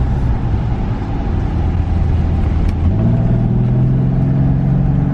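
BMW E36 inline-six engine pulling hard under full throttle from inside the car on its first hard run after a head gasket replacement. Its note jumps sharply higher in pitch about three seconds in and holds there.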